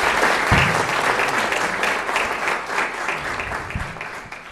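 Audience applauding: a dense clatter of many hands that starts strongly and dies away toward the end. Two low thumps come through, one about half a second in and one near the end.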